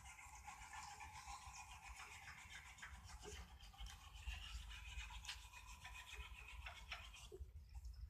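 Brass wire brush scrubbed rapidly back and forth over hot twisted steel: a faint, steady scratching. The steel is hot enough to melt brass from the bristles onto its surface, leaving a gold colour.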